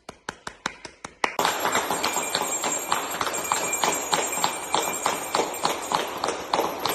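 Hands clapping in a quick steady rhythm, about five claps a second. A little over a second in, a much louder dense clatter of many people clapping and striking things takes over, with bells ringing steadily through it.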